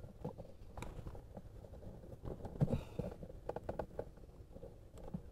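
Faint scraping, rustling and scattered light knocks of a cabin air filter being worked by hand into its plastic housing, with a brief scrape about three seconds in.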